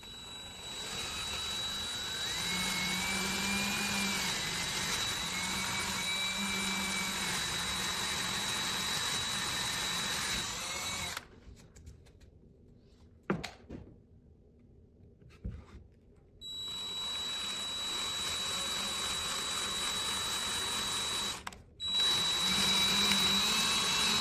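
Power drill with a 1/4 inch bit boring holes through 3/4 inch maple plywood. It runs steadily for about ten seconds and stops. After a pause with a couple of knocks, it runs again for several seconds, with a brief break near the end.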